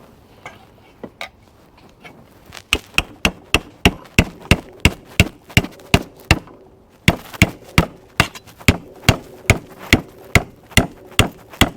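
Hammer striking sheet metal in quick repeated blows, about three a second, in two runs with a short pause between, after a few light taps at the start; this is hand-shaping or fitting a rust-repair panel.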